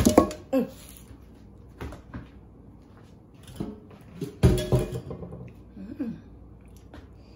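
A metal pot knocking against an aluminium tray as it is turned upside down onto it, followed by a few lighter knocks. A louder metallic clank with a brief ring comes a little past halfway.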